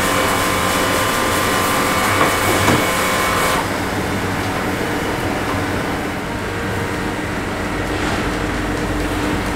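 Motorised charcoal rotisserie turning racks of chicken: a steady mechanical hum with light clicking from the rotating racks. The sound changes abruptly about three and a half seconds in, when the higher hiss drops away.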